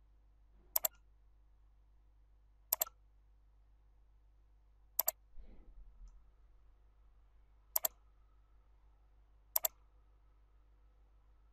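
Computer mouse button clicks: five spaced clicks, each a quick pair of clicks, as the map is zoomed.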